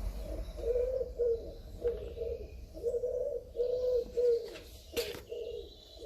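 Pigeon cooing: a steady run of low, repeated coos.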